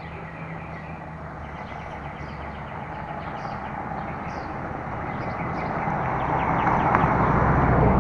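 A vehicle approaching on the street, its rumble and low hum growing steadily louder and peaking near the end.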